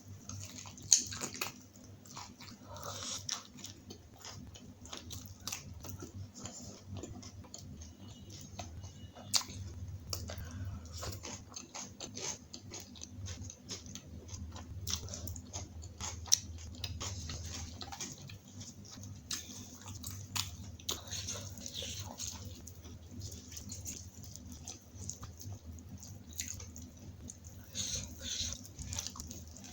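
Close-up eating sounds of a person biting and chewing a meal of butter naan, kadai paneer and salad: irregular wet mouth clicks and smacks with a few sharper, louder clicks. A low steady hum lies underneath.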